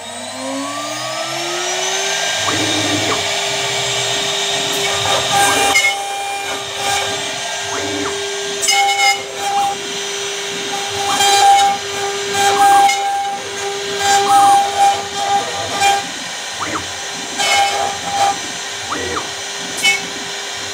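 A CNC router spindle spins up with a rising whine over the first two seconds, then holds a steady high whine. A 6 mm V-bit (cone cutter) engraves acrylic glass at a fast 3000 mm per minute feed, adding uneven, scratchy cutting noise that comes and goes over the whine.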